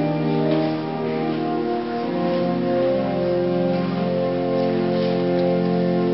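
Church organ playing long, held chords.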